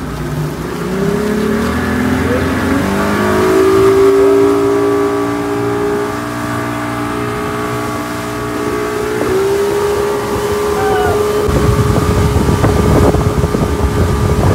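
Speedboat's outboard motor accelerating, its pitch rising over the first few seconds, then running steady at speed and rising a little again about nine seconds in. Near the end a loud low rushing of wind and water joins in.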